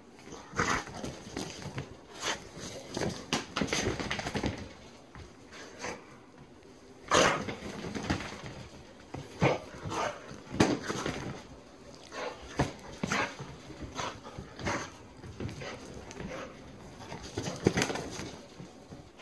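A dog at play with a toy, making short, irregular bursts of vocal noise mixed with knocks and scuffles of movement.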